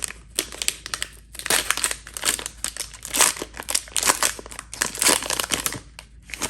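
Foil wrapper of a basketball trading-card pack crinkling in irregular crackles as it is handled and opened; it dies down near the end.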